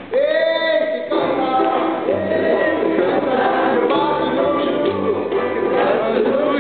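A man singing a song live over instrumental backing, with a bass line that moves to a new note every second or so.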